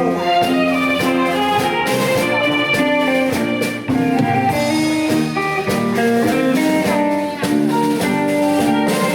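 Instrumental music with no singing: a melody of held notes over a steady drum beat, like a song's instrumental interlude.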